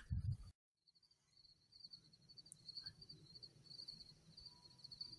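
Faint, high, finely pulsing trill of night insects over a faint low rumble, after a few low thumps in the first half second.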